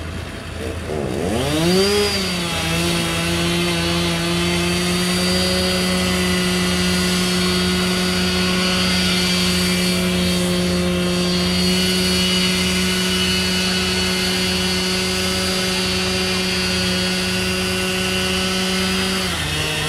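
Two-stroke petrol chainsaw revving up about a second in and then held at a steady high speed while cutting through old wooden crossing boards, easing down to a lower pitch near the end.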